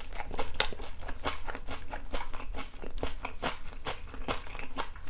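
A person chewing a mouthful of crisp battered fried chicken coated in sweet-spicy yangnyeom sauce, with irregular crunches a few times a second, picked up close by a clip-on microphone.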